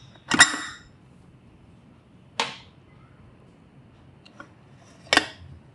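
Stainless steel pressure cooker: a brief hiss of steam as the whistle weight is lifted off the vent, then a few sharp metal clicks as the lid is handled.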